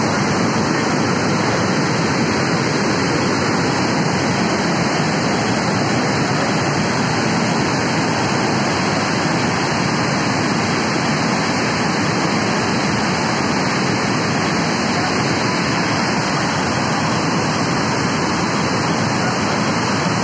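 Yamuna River in flood: a loud, steady rush of torrential, debris-laden water, with no let-up.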